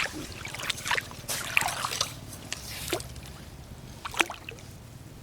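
Wet sand and shallow seawater splashing and trickling, with scattered sharp little clicks, as clams are dug out of a tidal flat by hand. It is busier in the first two seconds, then quieter, with one sharp click about four seconds in.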